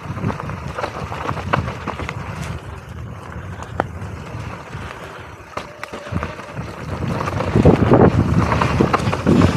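Mountain bike riding fast down a dirt singletrack: tyres rumbling on the trail and the bike rattling over bumps, with wind noise on the microphone. It gets louder and rougher for the last couple of seconds.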